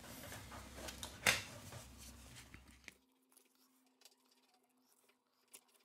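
Faint scraping and clicking of a metal opening tool prying at a smartphone's glued back-cover edge, with one sharper click about a second in. About halfway through, the sound drops out to near silence.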